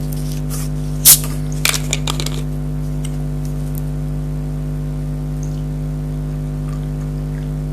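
A steady low electrical hum throughout, with one sharp click about a second in and a few smaller clicks and crackles just after, from food or packaging being handled before eating.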